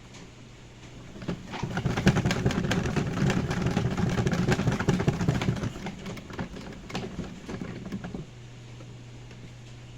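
Washing machine running: a steady motor hum, over which a loud stretch of rattling and knocking builds about a second in, dies down after about six seconds and stops around eight seconds.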